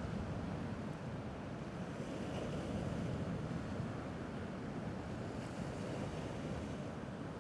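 Gentle sea waves washing steadily against the rocky shore.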